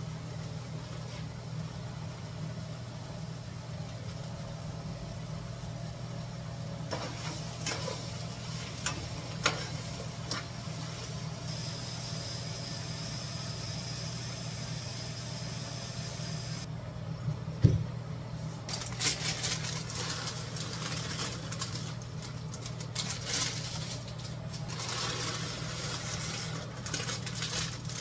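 Steady low hum of a kitchen vent fan over a gas range, with scattered clinks and knocks of cookware and utensils. In the middle, sliced squash sizzles softly as it goes into the hot skillet. One sharp knock comes about two-thirds of the way through.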